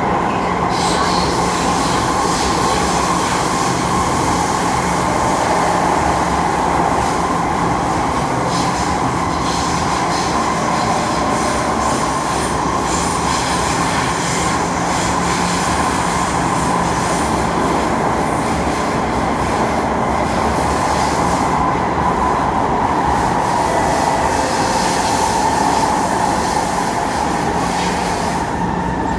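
Kawasaki C151 metro train running through an underground tunnel, heard from inside the car: a steady, loud rush of wheels on rail with a continuous low hum from the traction equipment.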